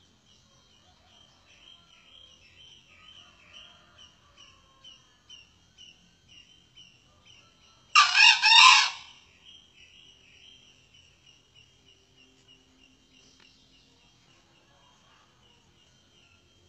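A male junglefowl crows once, a short hoarse call of about a second, about halfway through. Insects chirp steadily underneath at about two chirps a second.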